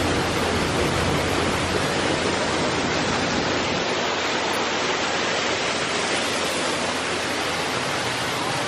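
Steady rushing of a waterfall pouring down artificial rockwork, a constant even hiss with no breaks.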